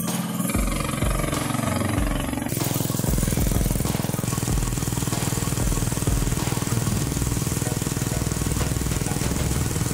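Honda-badged 200cc single-cylinder gasoline engine running on a homemade trike, a rapid steady pulsing. About two and a half seconds in the sound changes abruptly to the engine pulling the trike along the road.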